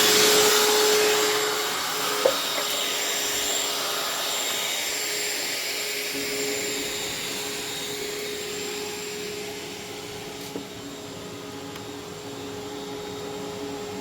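Shop vac running steadily with its hose on the blowing port, pushing air into a truck's tailpipe to pressurise the exhaust for a soapy-water leak test. It makes a steady motor whine over rushing air that slowly grows a little quieter, with one sharp click about two seconds in.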